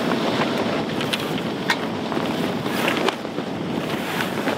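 Wind buffeting the microphone on a sailboat's deck, with water rushing along the hull and a few sharp clicks.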